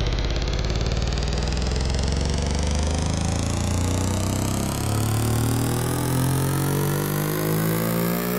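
Buzzy electronic synthesizer tone rising slowly and steadily in pitch while its filter opens and it grows brighter: an EDM build-up riser.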